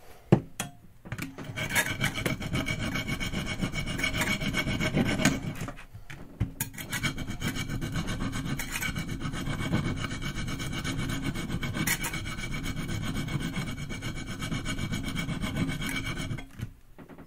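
A Santoku knife's steel scrubbed back and forth on a coarse sharpening stone, a steady rasping grind as the heel and bolster area is ground down so the edge lies flat. It runs in two long stretches with a short break about six seconds in.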